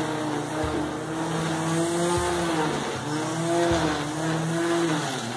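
String trimmer running, a steady whine whose pitch sags briefly a few times as the line cuts into the grass.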